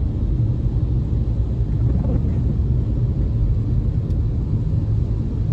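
Steady low rumble of a car's engine and tyres on a wet road, heard from inside the cabin.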